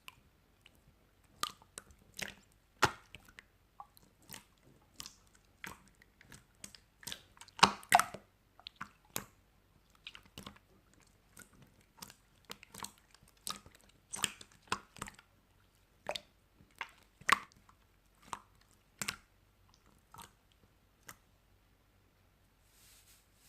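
Slow, irregular typing: separate key clicks and taps, about one to three a second and uneven in loudness, with a cluster of louder strikes around eight seconds in.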